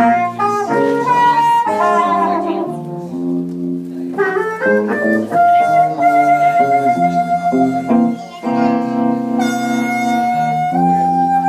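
Blues harmonica playing a slow solo, short bending phrases giving way to long held notes about halfway through and again near the end, over the band's guitar and bass backing.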